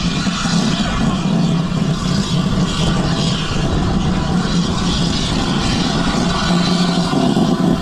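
A vehicle's engine running steadily under load, with a constant low hum and a rush of noise, heard while on the move.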